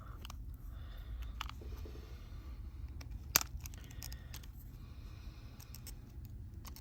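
Scattered small clicks and taps of hand tools and phone parts being handled during smartphone disassembly, with one sharper click about three and a half seconds in, over a steady low hum.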